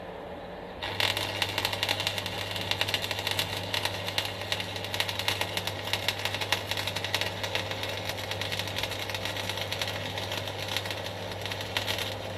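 Stick (MMA) arc welding: the electrode arc strikes about a second in and crackles and sizzles steadily as a bead is laid, over the steady low hum of the welding machine, then cuts off just before the end.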